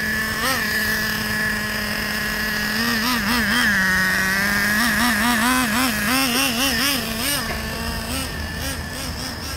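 Small nitro glow engine of an RC monster truck running while being broken in. It holds a steady buzz for stretches, and between them the throttle is blipped in quick pulses that make the pitch wobble up and down.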